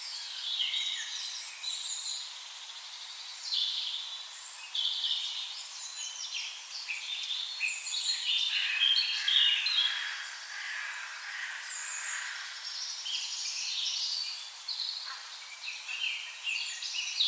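Birds chirping and singing: a steady chorus of many short, high calls overlapping one another.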